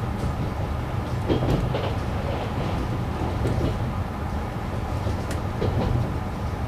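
KiHa 187 diesel railcar running at speed, heard from inside the cab: a steady low engine and running rumble with wheels clacking over rail joints now and then. An oncoming diesel train passes on the adjacent track about a second or two in.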